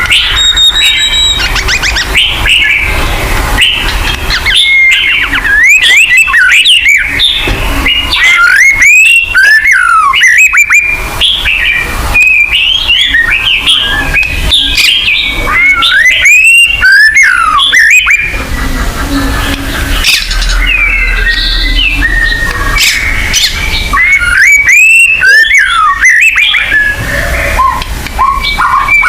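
White-rumped shama (murai batu) singing: loud, varied whistled phrases with quick rising and falling glides, coming in several dense bursts.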